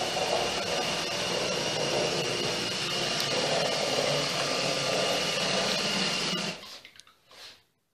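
LEGO Robot Inventor tracked racer driving, its motors and tracks making a steady mechanical whirr with a thin high whine over it. The sound stops near the end.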